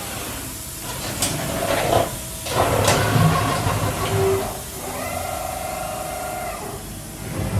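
2008 KAFO HMC-630 horizontal machining center running, with mechanical noise and hiss. Sharp clicks come about one and three seconds in, and a steady whine starts about five seconds in and lasts a second and a half.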